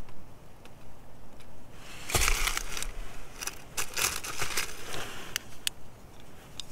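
Close crackly rubbing and scattered clicks of wet fingers turning a rough red crystal in the hand, densest and loudest in two spells of about a second each near the middle.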